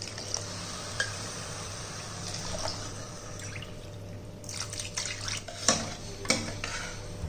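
Water poured from a steel measuring cup into a steel pressure cooker holding millet and vegetables, a steady splashing pour. After about four and a half seconds come several sharp clinks of the steel spoon and cup against the pot as the mixture is stirred.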